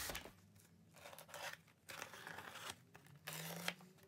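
Packing tape on a cardboard shipping box being slit with a box cutter, in several short scraping strokes.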